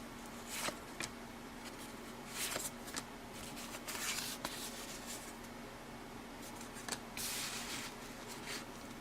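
1984 Topps hockey cards being slid and flipped through by hand: soft, scattered cardboard swishes and a few light clicks, over a faint steady hum.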